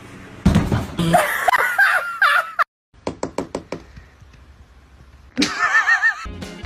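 A quick series of about six sharp knocks, with bursts of loud, wavering high-pitched calls before and after.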